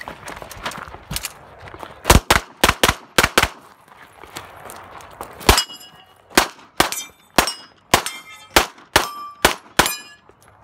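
Gunshots in quick strings: a burst of about five shots around two seconds in, then a steady run of about a dozen pistol shots from about five and a half seconds on. Each later shot is followed by the ring of a steel plate target being hit.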